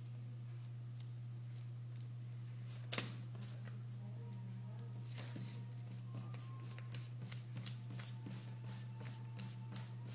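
A sheet of drawing paper being handled and shifted on a desk, with a sharp click about three seconds in, then rapid pencil strokes scratching across the paper, about three or four a second, from about halfway through.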